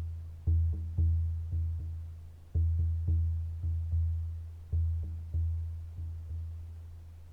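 A deep hand drum struck in a repeating pattern of five beats about every two seconds, each stroke ringing low. The strokes grow softer, and the last one, about six seconds in, is left to ring out.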